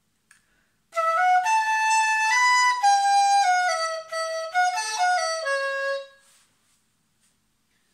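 Chinese bamboo flute (dizi) playing a short stepwise melodic phrase of about a dozen separate notes, starting about a second in and ending on a held low note near six seconds.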